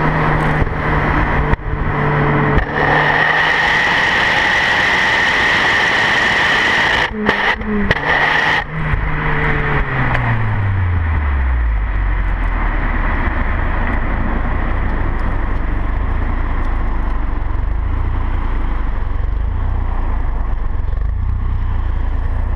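Exhaust of a Skoda Octavia 1.8T turbo four-cylinder through a straight-through SAAB 9000 2.3t muffler, heard at the tailpipe: running under load while driving with brief dips in level during the first half, then falling in pitch as the car slows, and idling steadily from about halfway on.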